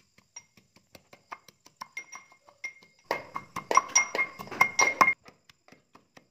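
Wooden pestle pounding leafy greens in a small metal pot. Each stroke is a knock with a short metallic ring, and the strokes get louder and come faster about halfway through.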